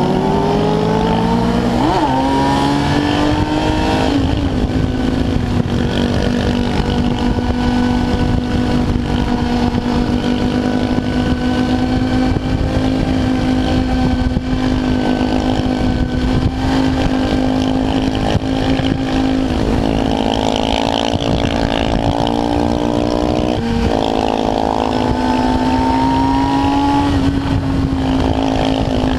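Kawasaki ZX-10R's inline-four engine heard from the rider's seat. It rises in pitch as the bike accelerates through the first few seconds, then holds a steady high note at speed, with wind rushing over the microphone.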